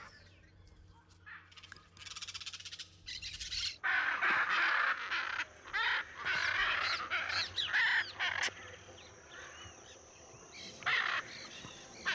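Hyacinth macaws calling with harsh, grating squawks. A few come about two seconds in, then a loud run of overlapping calls from about four to eight seconds, and one more call near the end.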